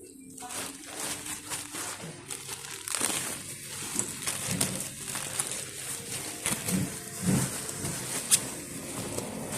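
Packaging being handled during unboxing: crinkling and rustling, with irregular small clicks and a few sharper knocks.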